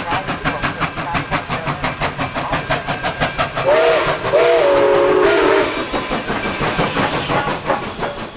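Nickel Plate Road 765, a 2-8-4 Berkshire steam locomotive, running with a rapid, even beat. About halfway through it sounds its steam whistle: several tones at once, rising in pitch at the start, blown twice in quick succession for about two seconds in all.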